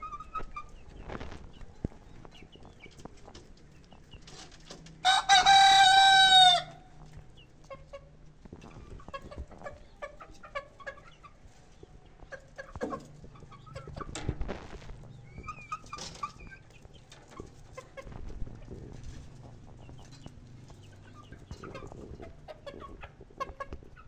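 A rooster crows once, about five seconds in, a single loud call lasting about a second and a half. Around it, chickens cluck softly now and then among scattered light taps.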